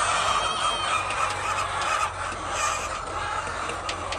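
A flock of hens clucking continuously, many birds at once.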